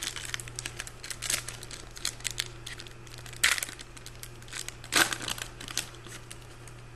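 Trading-card pack wrapper being torn open and crinkled in the hands, a dense crackle with two louder rips, about three and a half seconds and five seconds in.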